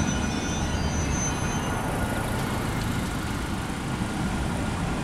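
Road traffic: cars and a pickup driving across a railroad grade crossing, a steady rumble of engines and tyres.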